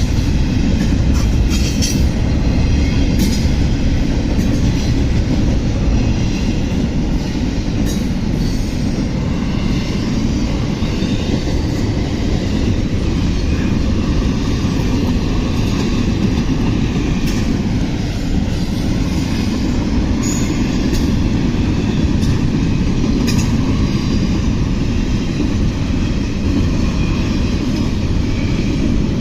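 CSX intermodal freight train rolling past close by: a steady loud rumble of wheels on rail, with scattered clicks as the cars pass over rail joints.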